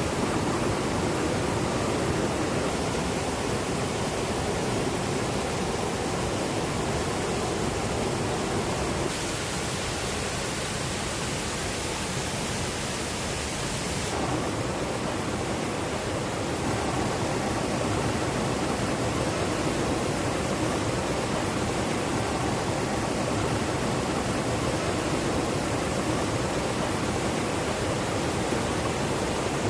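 Steady rush of fast-flowing mountain water, from the falls and cascades of a river gorge, with slight shifts in tone about nine and fourteen seconds in.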